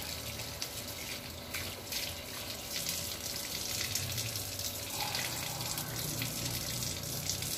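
Outdoor tap running in a steady stream onto wet concrete, with hands splashing under it near the start.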